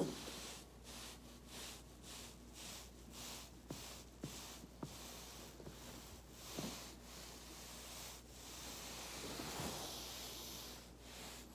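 A body rolling back and forth on a foam roller, giving a soft rhythmic rubbing hiss about twice a second, with a few short pops scattered through.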